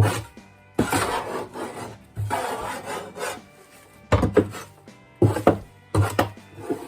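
Repeated knocks and scraping strokes, with two longer rasping scrapes in the first half.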